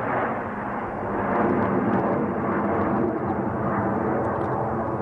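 Jet engine noise from a formation of Snowbirds CT-114 Tutor jets flying overhead: a steady, dull rush that grows a little louder about a second in.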